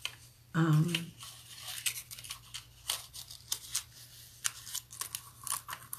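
Paper and foil sheets being handled and cut for die cutting: a run of short, crisp, irregular snips and rustles.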